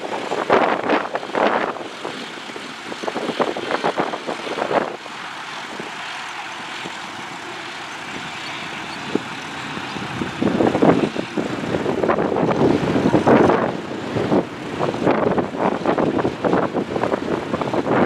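John Deere tractor's diesel engine running under load while pulling a mounted plough through stubble, with an uneven rushing noise over it. It drops to a quieter, steadier hum about five seconds in and grows louder and rougher again after about ten seconds.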